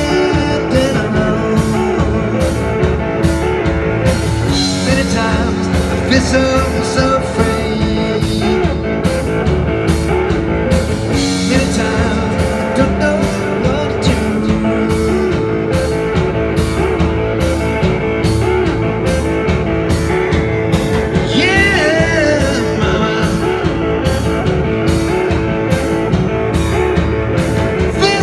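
Live rock band playing loudly: electric guitar over bass guitar and drums, with a steady cymbal beat. A lead line with wavering, bent notes stands out about 21 seconds in.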